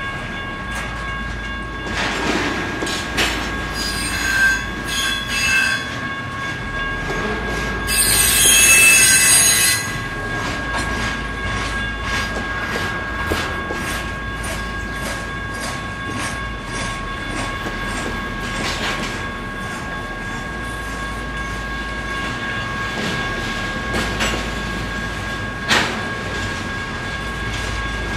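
Intermodal freight train rolling through a grade crossing, its wheels squealing in short bursts and then loudly for about two seconds near a third of the way in, with steady rumble and clicking of wheels on the rails. A railroad crossing bell rings steadily throughout.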